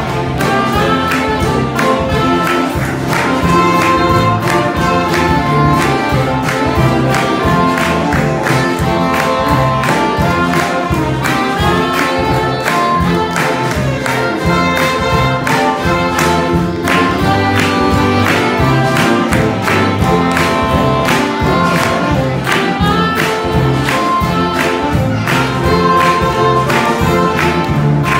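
Saxophone quartet, from soprano down to baritone saxophone, playing a hymn tune in four-part harmony with a steady beat.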